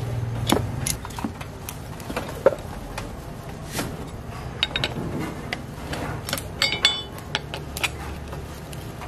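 Scattered metallic clinks and taps of a hand tool worked against a motorcycle engine's casing. A few brighter ringing clinks come about two-thirds of the way through, over a steady low hum.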